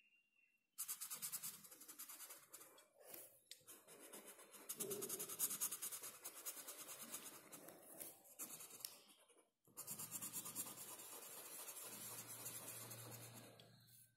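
Felt-tip marker colouring in on paper: faint, quick scratchy back-and-forth strokes, pausing briefly about a second in and again near ten seconds.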